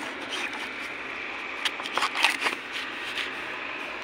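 Dry coconut leaf-sheath fibre and frond bases rustling and crackling as they are handled and pulled apart, with a cluster of sharper crackles about two seconds in, over a steady hiss.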